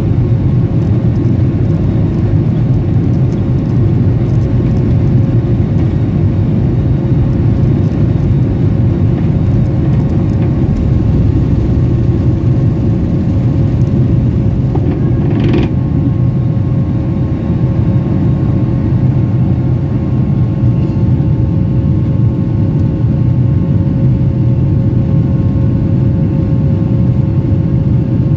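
Boeing 737-800's CFM56-7B turbofan engines at takeoff thrust, heard from inside the cabin over the wing: a steady rumble with a constant hum through the end of the takeoff roll, liftoff and initial climb. A brief noise cuts in about halfway through.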